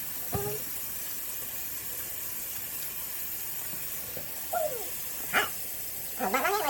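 Four short pitched vocal cries with gliding, wavering pitch, spaced out, the loudest near the end.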